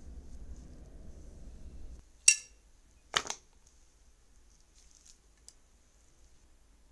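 Gouache paint tubes set down on a wooden tabletop: a sharp clack about two seconds in, a second clatter about a second later, and a faint tick near the end. A low hum stops just before the first clack.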